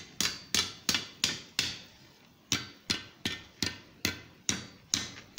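Hand hammer tapping the red-hot tapered end of a bar on the anvil, curling it into a scroll. Quick, light blows at about three a second, with a short pause near the middle.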